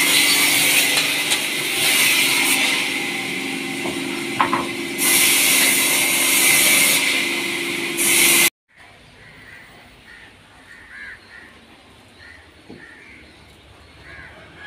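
Large log band saw running and sawing through timber: a loud, steady sawing noise with a steady whine under it. About eight and a half seconds in it cuts off abruptly, leaving a much quieter stretch with faint short chirps.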